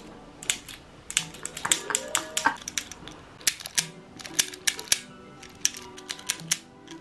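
Plastic Santa novelty pen being worked over and over: its mechanism clicks sharply each time the Santa's arms flap, in quick irregular runs of clicks. Faint background music underneath.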